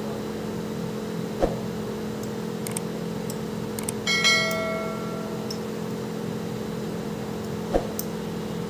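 LCD screen separator machine's vacuum pump running with a steady hum while it holds the display down on the heated plate. There are two light knocks, and about 4 s in a brief ringing clink that fades within a second.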